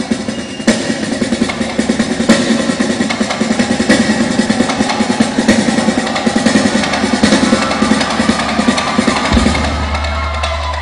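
Live drum solo on a drum kit with cymbals: fast, dense rolls and strokes. About nine seconds in the drumming eases and a steady low drone comes in.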